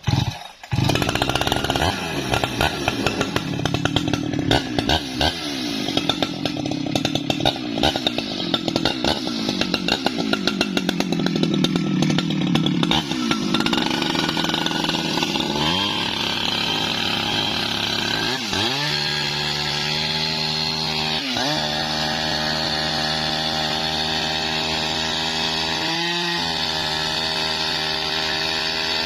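Jonsered chainsaw at high speed, ripping a log of bendo wood lengthwise. It starts abruptly and is rough and rattly with a wavering pitch at first, then settles into a steady high engine note that dips and recovers several times as the chain bites into the tough wood.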